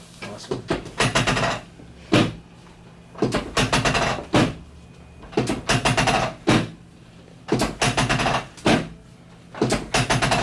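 A regular clattering: a quick run of clicks ending in one sharp knock, repeating about every two seconds, five times over.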